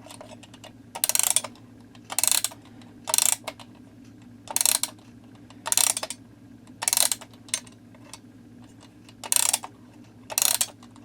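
Gabriel wind-up alarm clock's time mainspring being wound by its key: short bursts of ratchet clicking, one turn about every second, nine turns in all.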